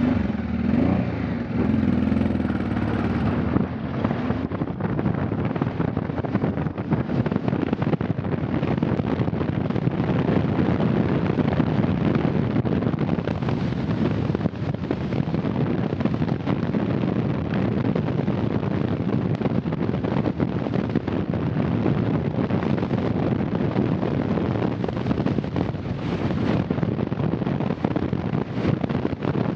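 Honda Transalp V-twin motorcycle being ridden, its engine note rising as it picks up speed in the first few seconds, then running steadily under rushing wind noise.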